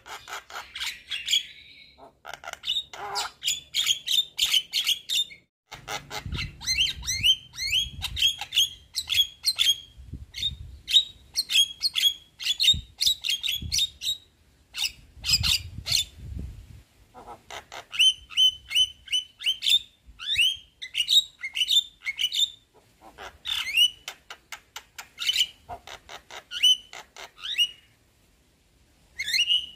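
Javan myna (jalak kebo) singing its chattering song: rapid runs of short, harsh squawking notes in bouts with brief pauses. A low rumble sits under the calls in the middle stretch, and the calls stop briefly near the end.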